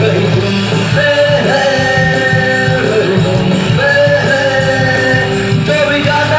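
Rock band playing live: a singer's long held notes over electric guitars, bass and drums.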